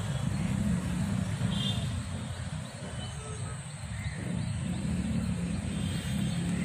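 Outdoor background rumble, low and steady, with a few faint high bird chirps, around two seconds in and again near the end.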